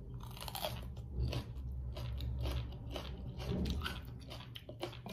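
A person biting into and crunching a raw green vegetable close to the microphone, with repeated crisp crunches as she chews, over a steady low hum.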